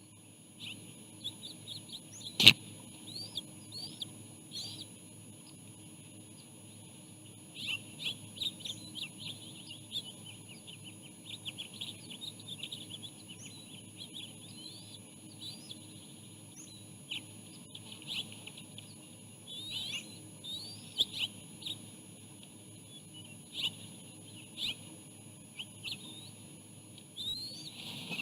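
A bald eagle's sneeze, called a snite: one short, sharp burst about two and a half seconds in, the loudest sound here. Many quick, high bird chirps come and go throughout.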